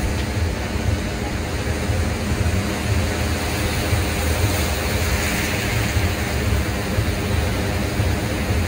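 Wind buffeting the microphone: a steady rushing noise with heavy, uneven low rumbling.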